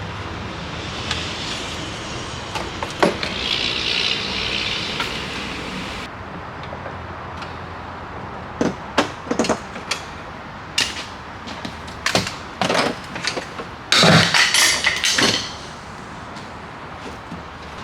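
Hands and tools working on a pickup truck's door window and regulator hardware. A hissing whir runs for about six seconds and cuts off sharply, then come a series of sharp clicks and knocks, with a louder rattling scrape near the end.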